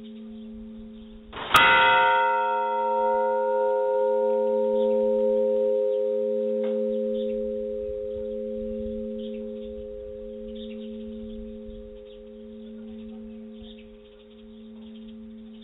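A large church bell struck once about a second and a half in, then left to ring and slowly fade. Its higher tones die away first, while a low hum keeps swelling and fading in slow pulses. Before the strike, the end of the previous stroke is still dying away.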